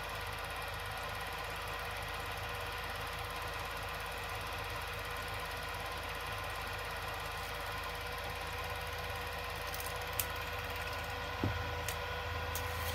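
A small machine running with a steady whirr and hum and a fast, even rattle. A few sharp clicks come near the end, and after one of them the low hum grows louder.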